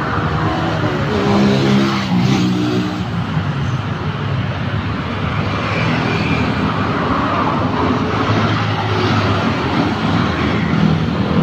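Motor vehicle engines running steadily under a constant rushing noise, with engine tones rising and falling as vehicles pass, most clearly about one to three seconds in and again near the end.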